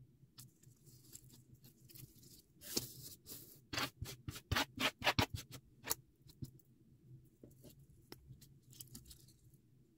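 Layered paper flower cutouts rustling and crinkling as they are handled and set down on a wooden table, with a busy run of sharp rustles and light clicks from about three to six seconds in.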